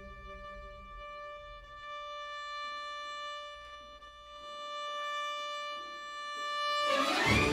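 Orchestral film score: a violin holds one long, steady note, then the full string orchestra comes in loudly just before the end.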